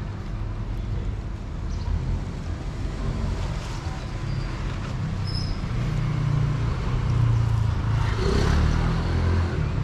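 Low rumble of road traffic, a motor vehicle's engine growing louder in the second half as it passes.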